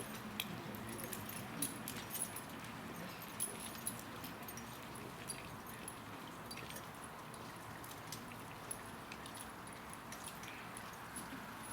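Faint outdoor background with scattered short clicks and taps at irregular moments.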